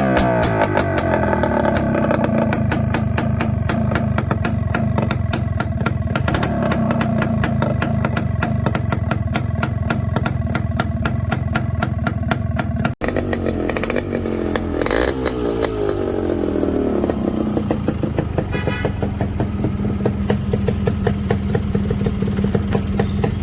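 Yamaha RX 100's air-cooled two-stroke single-cylinder engine running with a fast, even firing beat. The revs drop just after the start, then settle. About fourteen seconds in, a throttle blip sends the revs up and back down before it idles on.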